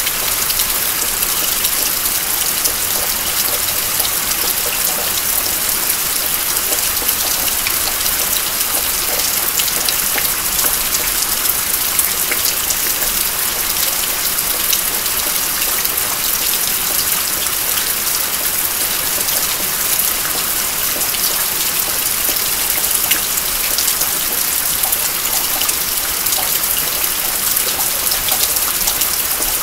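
Steady rain falling, with many small drops ticking as they land.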